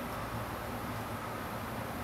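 Steady background hiss with a faint low hum and no distinct events: room tone.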